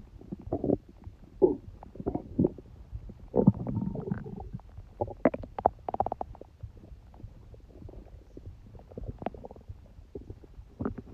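Human stomach gurgling: irregular low gurgles and short squelchy pops, with a longer run of gurgling about three and a half seconds in.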